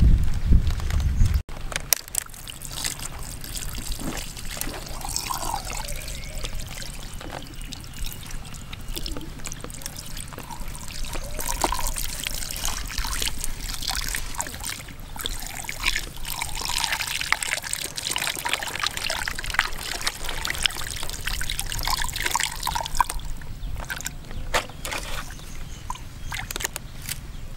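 A thin stream of water trickling and splashing into a gutted stingray's opened belly as it is rinsed out by hand. It starts about two seconds in and thins out near the end.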